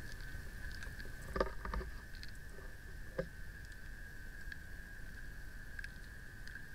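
Muffled underwater ambience heard through a submerged camera: a low rumble with a steady thin whine, and a few soft clicks about one and a half and three seconds in.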